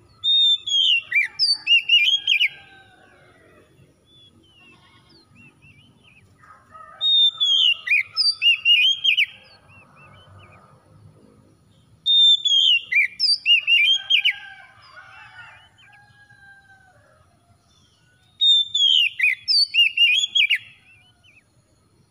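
Oriental magpie-robin (kacer) singing: four loud bursts of quick, sliding whistled notes, each about two seconds long, the same phrase repeated every five to seven seconds.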